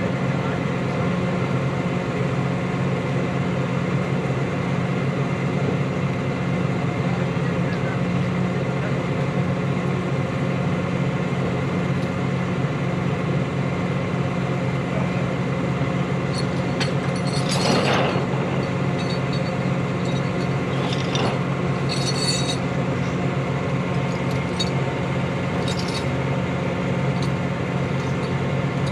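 Tow truck's engine running with a steady low drone, heard from inside the cab, with a few brief clinks and rattles about halfway through.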